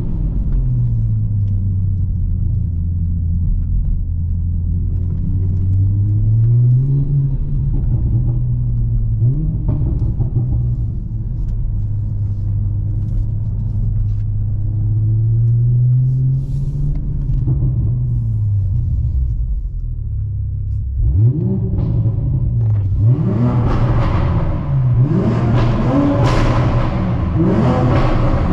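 Toyota GR Supra's turbocharged 3.0-litre inline-six running through an HKS Hi-Power exhaust. For most of the stretch it cruises at fairly steady revs with a few gentle rises and falls. About 21 seconds in, under hard acceleration, the revs climb and drop sharply several times, getting louder and raspier toward the end.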